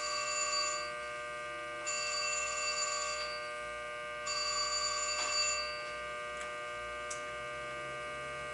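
Telephone ringing in repeated rings about every two and a half seconds; the third ring ends a little past halfway and the phone stops. A steady electrical hum runs underneath.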